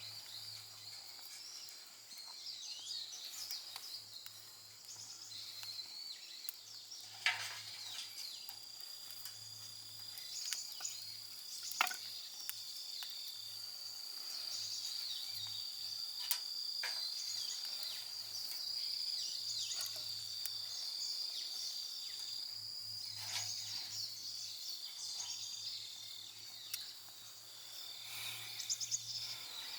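Woodland ambience: a steady high-pitched insect trill with bird chirps over it, broken by a few short sharp crackles from a small campfire.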